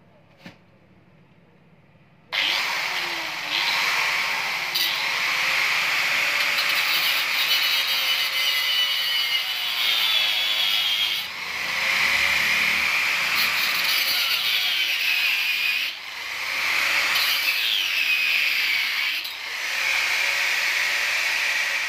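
Handheld angle grinder starting about two seconds in and cutting through the metal battery-box mounting on a bicycle frame, running steadily under load and easing off briefly a few times during the cut.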